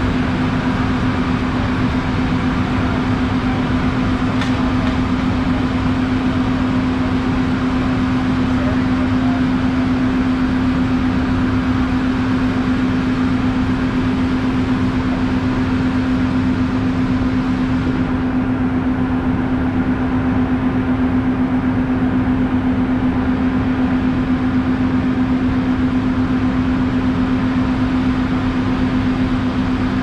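Double-drum asphalt roller's diesel engine running steadily at close range, a loud unbroken drone with a strong steady hum.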